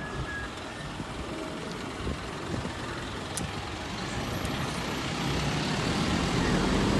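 Isuzu box truck driving slowly past on the street, a steady mix of engine rumble and tyre noise, with the traffic noise growing louder near the end.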